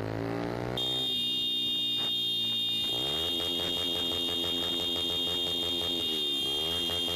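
Motorcycle engine slowing over the first few seconds, holding steady, then briefly dropping and picking up again near the end. From about a second in, a steady high-pitched electronic buzzer tone sounds over it.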